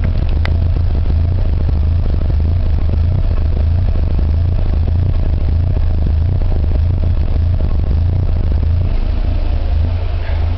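Exhaust of a Nissan Hardbody's KA24E four-cylinder engine idling roughly at operating temperature, as if running on two cylinders. The uploader traced the rough idle to distributor and ignition timing set slightly off when the distributor shaft was re-stabbed.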